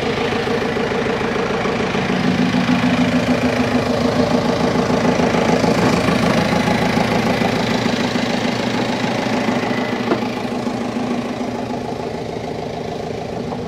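A boat engine running steadily in the engine room, getting a little louder a couple of seconds in and easing off toward the end.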